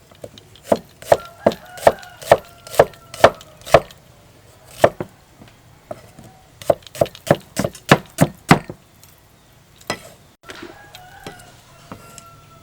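A knife chopping food on a wooden cutting board in two runs of quick, even strokes, about two to three a second. The runs are split by a short pause with a single stroke.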